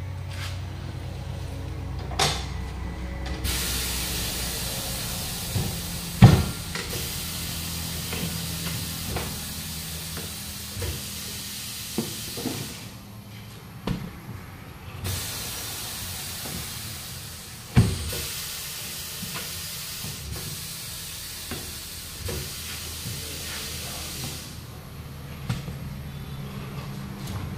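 A steady hiss of escaping air that starts a few seconds in, breaks off for a couple of seconds midway and stops near the end. Over it come a few sharp knocks and thumps from a steel car wheel and tyre being handled and rolled on concrete.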